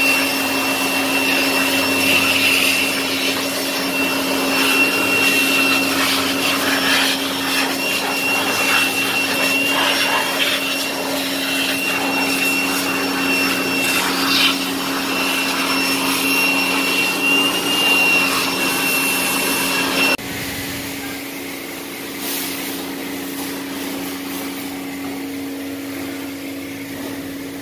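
A car-wash cleaning machine runs steadily with a high whine over a low hum. It cuts off abruptly about twenty seconds in, leaving a quieter steady background.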